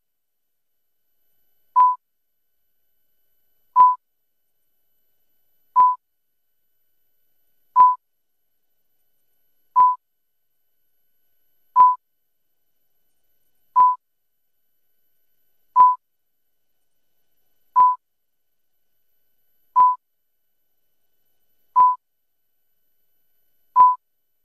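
Broadcast countdown beeps: a short, single-pitched electronic beep about every two seconds, with silence between, a dozen in all.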